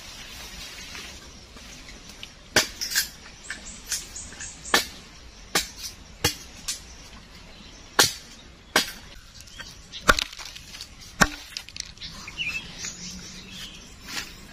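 A blade chopping into wood: about ten sharp knocks at uneven intervals, a few of them heavier with a deep thud.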